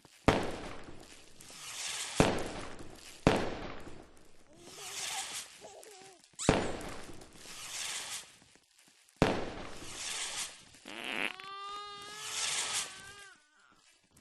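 Fireworks going off: five sharp bangs spaced one to three seconds apart, each trailing off in about a second of crackle and hiss. A high, wavering voice rises over them near the end.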